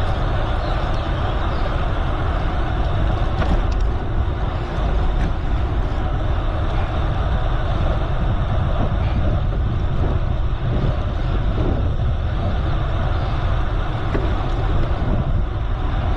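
Steady wind and road noise of a bicycle ride: wind buffeting the microphone over the rolling of the tyres, a constant low rumble with an occasional faint click.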